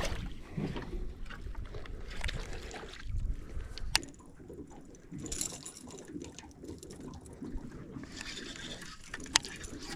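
Water sloshing and trickling close by a small fishing boat, with a couple of sharp clicks of handling.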